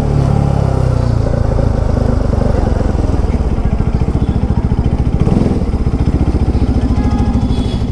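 Bajaj Pulsar RS200's single-cylinder engine running at idle through an aftermarket exhaust, with a steady rapid thumping beat as the bike creeps slowly. The engine note rises briefly about five seconds in.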